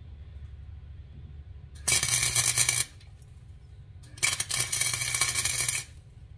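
Wire-feed (MIG) welder laying two tack welds on a nut on threaded rod: two bursts of arc crackle, the first about a second long and the second about a second and a half.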